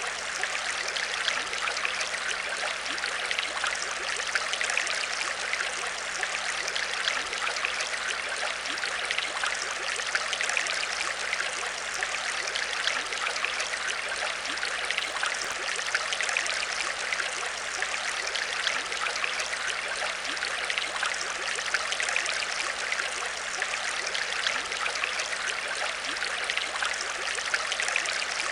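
Aquarium water trickling and bubbling steadily, with a faint steady hum underneath.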